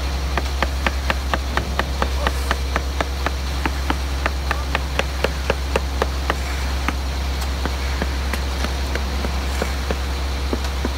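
Concrete boom pump's diesel engine running with a steady low hum, overlaid for about the first six seconds by a fast, even clicking, about four to five clicks a second, that then thins to a few scattered clicks.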